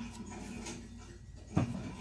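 A steady low hum, then a single sharp knock about one and a half seconds in: a baking powder container set down on the kitchen countertop.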